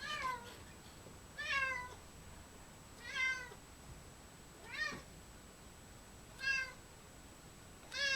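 Domestic cat meowing over and over, six calls about a second and a half apart, each one falling in pitch.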